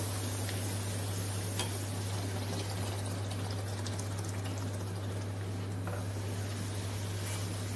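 Bread poori deep-frying in hot oil in a steel kadai: a steady sizzle, with a steady low hum underneath and a faint tick about a second and a half in.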